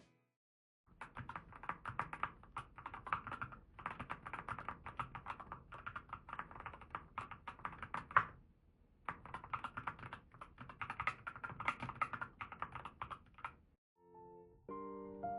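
Fast typing on a Keychron K4 HE keyboard with magnetic-sensor (Hall-effect) switches: a soft, dense clatter of keystrokes in two runs of several seconds, split by a short pause. Background piano music comes in near the end.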